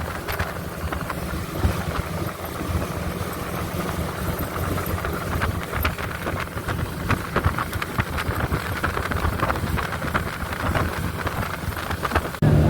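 Motorboat's outboard engine running steadily while under way on a river. Near the end the engine note turns suddenly louder and steadier.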